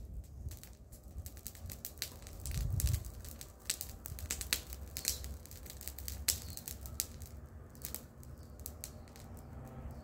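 Irregular crunches and snaps of dry leaves, twigs and soil being worked by hand, over a low rumble.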